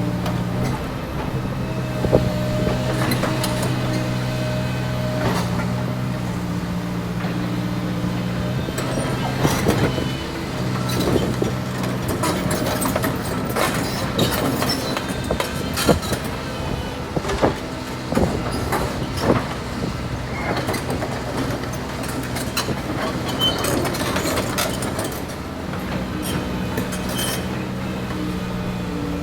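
Heavy diesel earth-moving machinery running steadily, with frequent irregular clanks and knocks of rock and metal. The engine hum is weaker through the middle, where the knocks are thickest.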